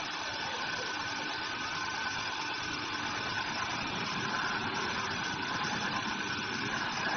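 Woodworking band saw running steadily, a continuous machine noise with a steady high hum.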